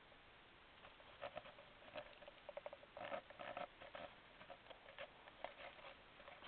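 Faint, irregular rustles and small clicks from a handheld camera being moved about and brushed against the car's interior trim; otherwise near silence.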